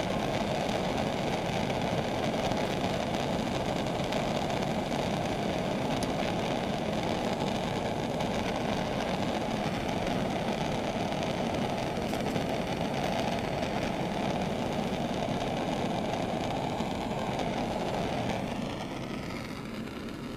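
Handheld propane torch burning steadily with an even rushing noise as it heats a 3/4-inch copper sweat joint to soldering temperature. The sound drops near the end as the flame is taken off the finished joint.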